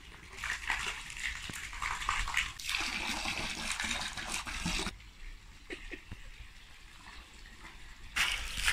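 Water from a garden hose jetting into a partly filled above-ground pool, splashing steadily on the surface. It is louder for the first few seconds, softer in the middle, and louder again near the end.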